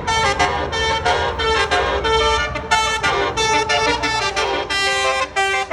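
A tour bus's multi-tone telolet air horn playing a tune of short notes that change pitch, over a low engine rumble that drops away about four seconds in.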